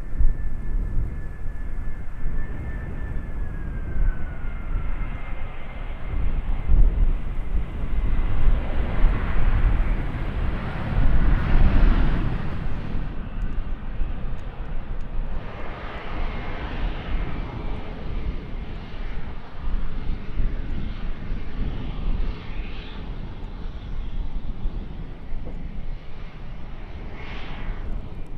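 Airliner's engines heard as the aircraft passes: a steady rumble with a whine that drops in pitch a few seconds in, swelling to its loudest around ten to twelve seconds in and then easing off.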